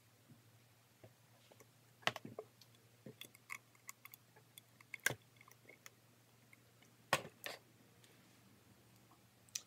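Faint, irregular clicks and soft taps, about seven in all and sharpest about two, five and seven seconds in: handling noise as a makeup sponge is dabbed against the face to blend in cream contour.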